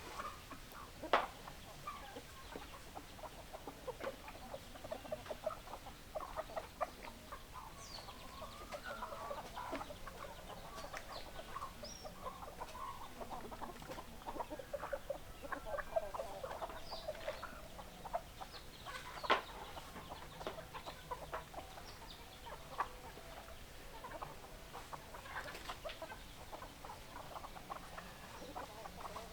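A flock of hens clucking continuously, many short overlapping clucks. Two sharp clicks stand out, about a second in and about two-thirds of the way through.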